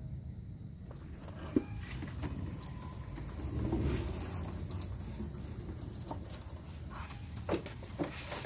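Engine oil draining from the B58's oil pan into a drain pan, a steady pattering stream that swells a few seconds in, with a few sharp knocks and clicks along the way.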